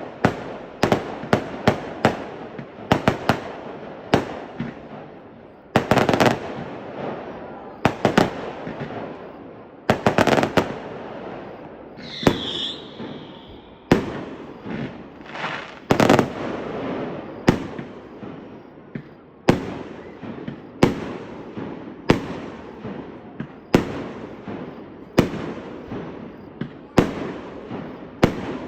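Fireworks display: aerial shells bursting one after another, a sharp bang about every one to two seconds, sometimes several in quick succession, each trailing off in an echoing rumble.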